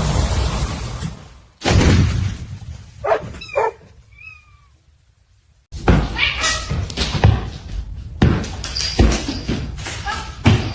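Cat meowing twice, two short calls with gliding pitch, after a sudden thump; then, after a short silence, a busy run of knocks, bangs and clattering.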